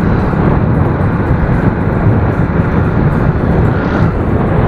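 Motorcycle riding at speed: a steady, loud rumble of engine and wind noise.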